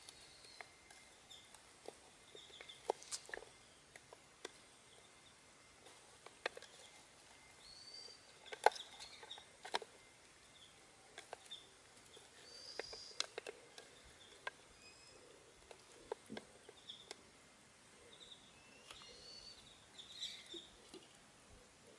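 A hand squishing and tossing spiced goat trotters with onion and tomato in a bowl: scattered wet clicks and squelches, with birds chirping faintly in the background.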